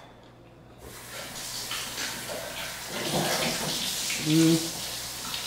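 A steady hiss that starts about a second in, with a short hummed voice sound about three-quarters through.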